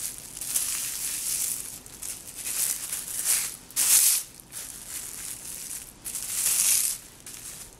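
Purple plastic hair wrap crinkling and rustling in irregular short bursts as it is folded around a section of a poodle's topknot hair.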